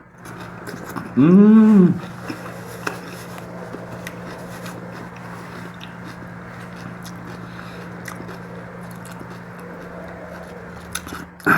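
Person chewing and biting through a mouthful of mutton and rice, with a loud hummed vocal sound about a second in whose pitch rises and then falls. A steady low hum runs underneath.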